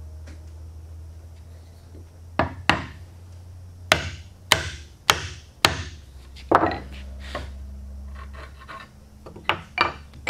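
Wood chisel struck with a mallet, chopping into the end of a board clamped in a bench vise. Two blows come first, then five sharp blows about every half second, then lighter taps near the end, over a steady low hum.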